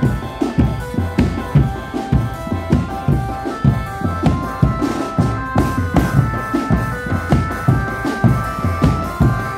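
Marching drum band playing live: large bass drums beat a fast, steady rhythm under a melody line of short held tones.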